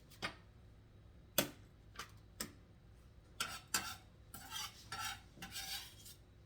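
Metal kitchen utensils clinking against dishes and a pot: six or so sharp knocks, then several short scrapes, as in stirring or scraping seasoning into a pot.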